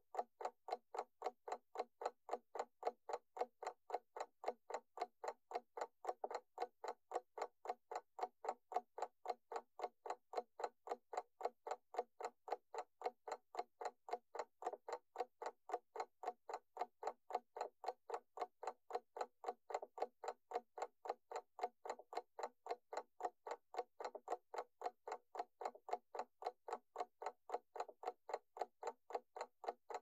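Clock ticking in a quick, even rhythm of several ticks a second.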